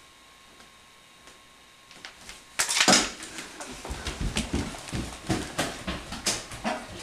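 A loud clunk about two and a half seconds in, then a run of quick knocks and thumps, about three a second: footsteps and handling noise of a camcorder being carried across a hardwood floor.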